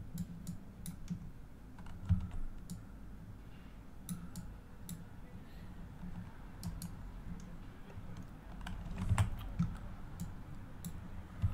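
Irregular clicks of a computer mouse and keyboard keys, with a couple of duller thumps about two seconds in and near the end.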